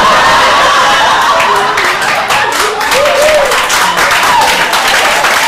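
Audience applauding after a punchline, steady dense clapping with a few voices calling out over it.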